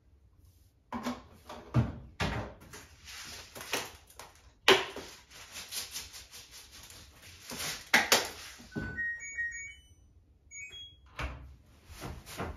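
Plastic laundry detergent and softener bottles handled over a top-loading washing machine: caps clicking, bottles and the lid knocking, with rustling and pouring in between. About nine seconds in, the washer's control panel gives a run of short electronic beeps at different pitches, as buttons are pressed to start a cycle. A few more knocks follow near the end.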